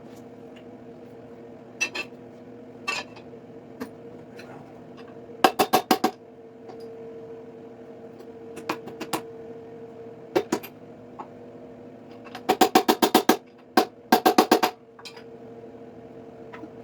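Rapid bursts of metal-on-metal strikes, about ten a second, as a tool works on the seized Chevy 283 small-block, whose pistons are rusted in the bores. There are three short bursts and scattered single knocks over a steady hum.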